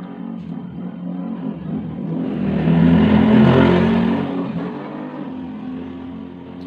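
A motor vehicle passing by, its engine growing louder to a peak about three seconds in, then fading away.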